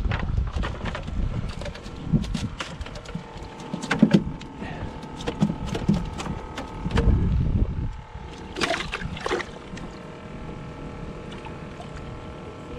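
A cast net being hauled in and dumped onto the deck of a small fibreglass skiff: irregular knocks and clatters as the lead weights and net hit the deck, with low rumbling handling noise.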